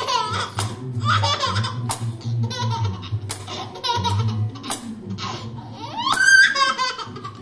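A toddler boy laughing in a string of short giggling bursts, the loudest near the end, with a few sharp clicks between the laughs.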